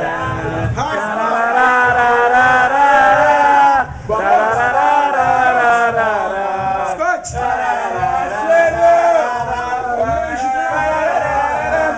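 A group of voices singing and chanting together over music with a steady drum beat, briefly dropping off about four seconds in.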